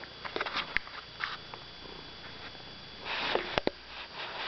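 A cat sniffing close to the microphone: a couple of short breathy sniffs about three seconds in, with scattered light clicks and taps in the first second and a half and two sharper clicks just after the sniffs.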